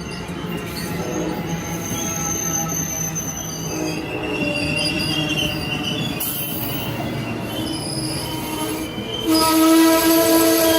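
Wheels of an Amtrak Northeast Regional passenger train squealing on the rails, several high-pitched squeal tones shifting over a steady rumble. About nine seconds in, a louder steady tone with overtones joins and the sound grows louder.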